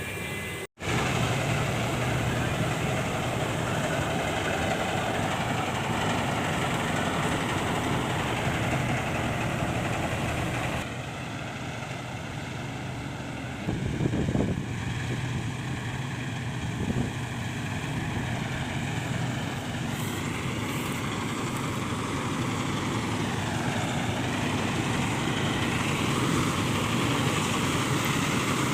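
Farm machine engine running steadily, with abrupt shifts in the sound about 11 and 20 seconds in and a brief louder spell about 14 seconds in.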